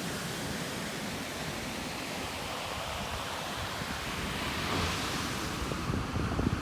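Ocean surf washing on the beach, a steady rush that swells about four to five seconds in, with wind buffeting the microphone in low thumps near the end.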